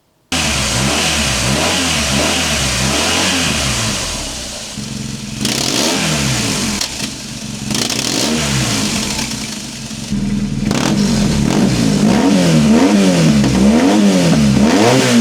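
BMW R1200 GS Adventure's boxer twin engine revved repeatedly in short throttle blips, its pitch rising and falling with each blip. It is heard through different exhaust set-ups in turn, stock and GRmoto slip-on, so the tone changes abruptly several times. The blips come regularly, a little under a second apart, near the end.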